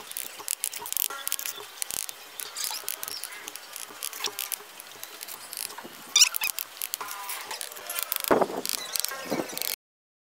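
Steel bricklaying trowel scraping mortar and tapping hollow clay bricks into place, an irregular run of clicks, scrapes and knocks. It cuts off suddenly near the end.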